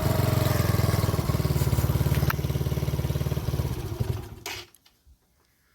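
Mini ATV engine idling with a steady, even firing rhythm on its newly adjusted Mikuni carburetor. The engine dies away about four seconds in, with a click as it stops.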